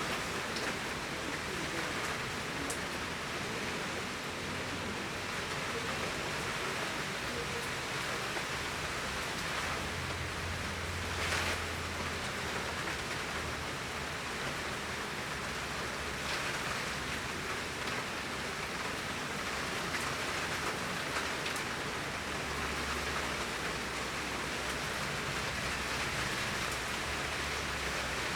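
Torrential summer rain falling steadily, a dense even hiss of rain on surfaces with a few sharper drop hits, the loudest about eleven seconds in.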